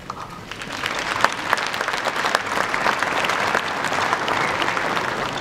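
Audience applauding: many hands clapping, swelling during the first second and easing off near the end.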